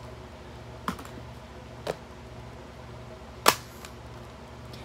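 Makeup palettes knocking as they are set down onto a stack of palettes: a few short knocks about a second apart, the loudest a little past the middle.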